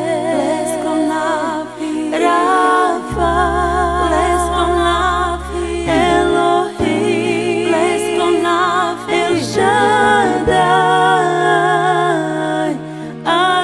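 Christian praise song: a woman singing with wide vibrato over long held low bass notes that change every few seconds.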